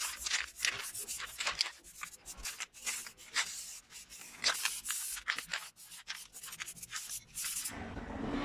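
Aerosol spray paint can hissing in many short, quick bursts, about two or three a second, as metal mower parts are coated black.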